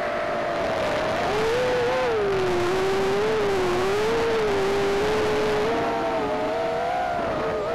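Micro quadcopter's motors and propellers whining, the pitch wavering with the throttle over a steady hiss. The pitch drops about a second and a half in, wobbles at that lower pitch, and rises again near the end.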